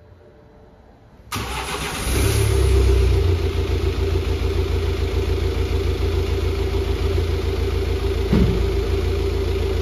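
Freshly rebuilt BMW N47 four-cylinder diesel engine starting for the first time: it cranks about a second in, catches almost at once, runs up loudly for about a second, then settles into a steady idle.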